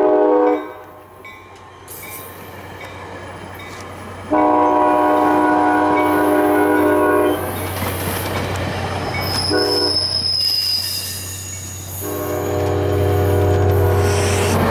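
ACE commuter train's horn sounding several notes at once in the grade-crossing pattern: the end of one long blast, then a long blast, a short one and another long one. Under it the passing bilevel cars make a steady low rumble that builds near the end as the locomotive comes up.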